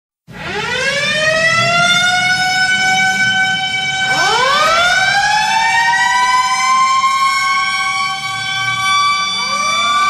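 HIFK's ice hockey goal horn sounding, a wailing tone that rises in pitch and then holds. It winds up again about four seconds in and once more near the end.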